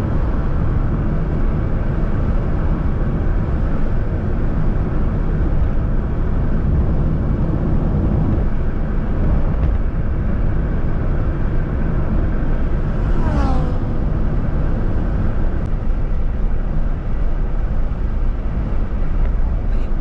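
Steady road and engine noise of a car driving on a highway. About two-thirds of the way through, a brief tone slides down in pitch.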